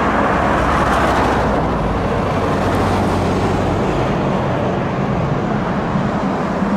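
Road traffic noise: the tyres and engines of passing cars, slightly louder about a second in, with no siren to be heard.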